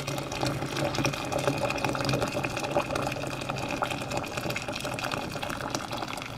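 Hot water poured in a steady stream into a stainless steel pot, splashing into the water already in it; the stream thins and the sound eases near the end.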